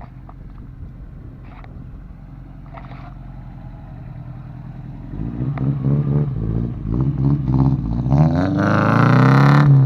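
OHC four-cylinder car engine with a loud exhaust idling steadily, then revved in a string of quick blips from about halfway through and held at high revs near the end before dropping back. Its note is likened to a brush cutter's.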